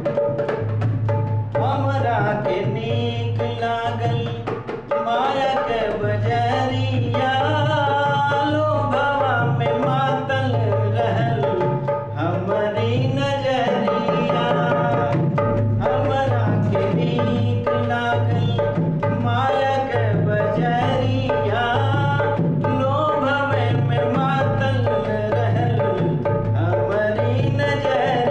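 Dholak hand-drumming in a steady folk rhythm under a sustained melodic line: an instrumental passage of a Bhojpuri nirgun song.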